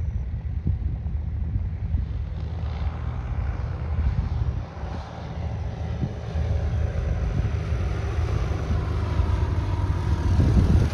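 Piper PA-28 single-engine propeller plane on final approach, its engine and propeller growing louder as it comes in low. The pitch drops a little as it passes, near the end.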